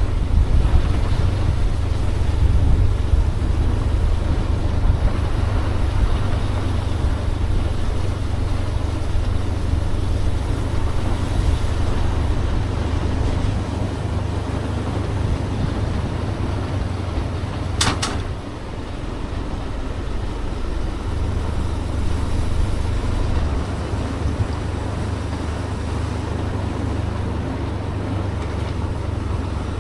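Motorbike ride: the steady rumble of the bike and wind buffeting the microphone, with a single sharp click a little past halfway.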